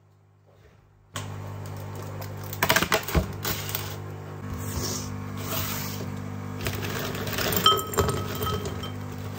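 Dishes and cutlery clinking and rattling over a steady electrical hum that starts about a second in.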